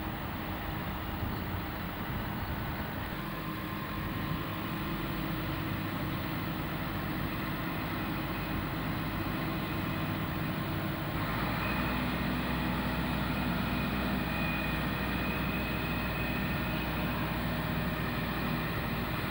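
Heavy diesel engines of mobile cranes running steadily while they carry a load. About eleven seconds in the sound steps up, with a stronger low hum and a thin steady high tone.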